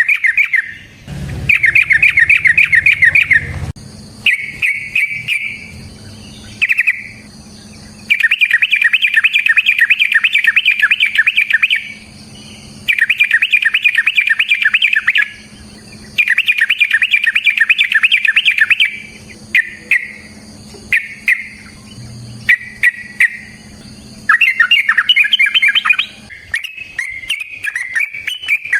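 Yellow-vented bulbul singing in long, rapid rattling runs of repeated notes, each two to three seconds long with short pauses between them, breaking into shorter phrases in the second half. A faint steady hum and a high whine sit underneath.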